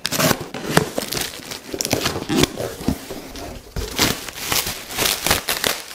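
A cardboard shipping box being opened by hand, then a clear plastic bag crinkling as it is pulled off a polystyrene foam box. The sound is an irregular run of rustling and crackling with many sharp crinkles.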